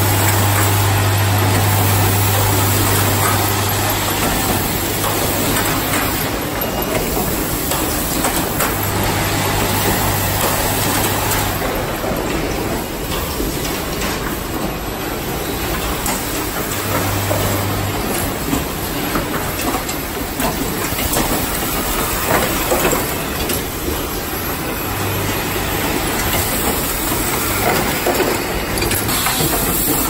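Automatic power-cord plug crimping and insertion machines running: a dense, steady mechanical clatter full of fine clicks, with a low hum that comes and goes several times.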